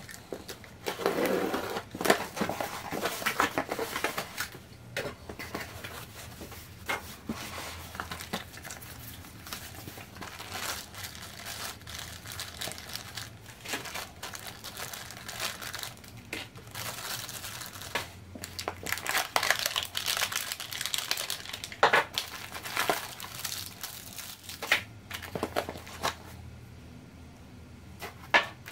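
Unboxing noise: packing tape on a cardboard box being slit and torn in the first few seconds, then plastic bags crinkling and rustling in irregular bursts as wrapped parts are handled.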